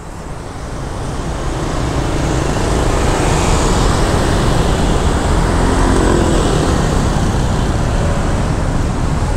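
Road and traffic noise heard from a motorbike riding through city traffic: a steady dense rumble of engines and tyres that builds over the first few seconds and then holds.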